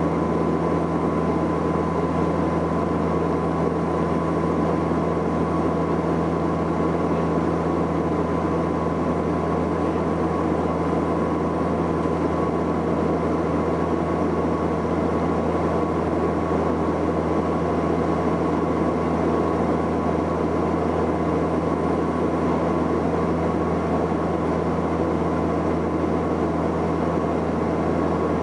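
Cabin drone of a Saab 340B's twin General Electric CT7 turboprop engines in flight: a steady, unchanging low propeller hum with a thin constant whine above it.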